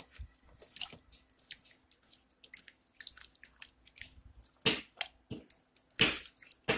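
A plastic spatula stirring chunks of carrot and potato in broth in a metal pot: irregular wet squishes and splashes with light knocks, three louder strokes in the second half. A faint steady hum runs underneath.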